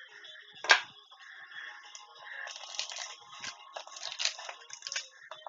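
Foil trading-card booster pack being handled and torn open, with crinkling and rustling wrapper. There is a single sharp snap less than a second in.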